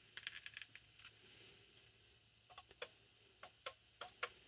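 Faint, scattered small clicks and taps of hand tools and metal carburetor parts as the choke tension on a Carter Thermoquad carburetor is set by hand, a quick run of clicks at the start and more near the end.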